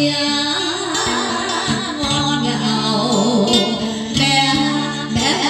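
Music: an instrumental passage of the song's accompaniment, with a plucked string instrument playing a wavering melody over sustained tones.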